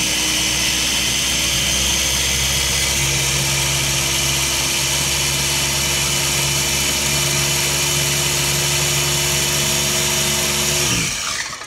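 Electric mini food chopper's motor running steadily as it blends eggs and coconut flour into a batter, then winding down with a falling pitch and stopping near the end.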